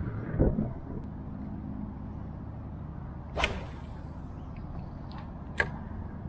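Fishing rod cast from a kayak: a swish of rod and line about three and a half seconds in, then a single sharp click a couple of seconds later. Low thumps near the start sit over a steady low rumble.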